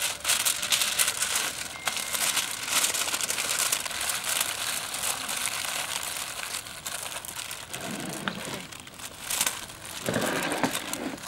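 Thin clear plastic bag crinkling and rustling as it is handled and food is put into it: a steady run of small, irregular crackles.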